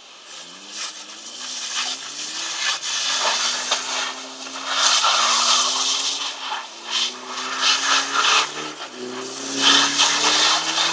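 Citroën C-Crosser SUV engine revving hard in repeated bursts, its pitch climbing with each burst, while the tyres spin and hiss through snow as the car drifts in circles.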